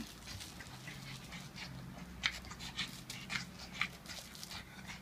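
A pug breathing hard in short, irregular breaths, with a few louder puffs around the middle.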